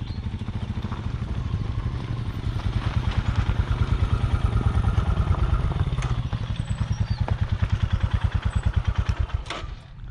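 Motorcycle engine running at low revs with an even pulsing exhaust beat, fading near the end, with a couple of sharp knocks as it does.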